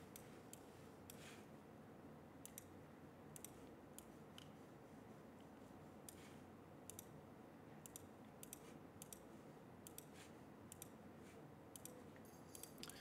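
Near silence with scattered faint, irregular clicks of a computer mouse.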